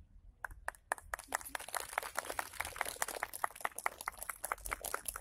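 Applause from a small crowd: a few scattered claps about half a second in, quickly filling into steady clapping.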